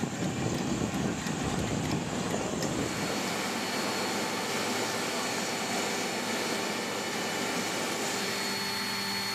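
Rough, gusty noise for about three seconds, then a steady aircraft machinery hum with several fixed whining tones.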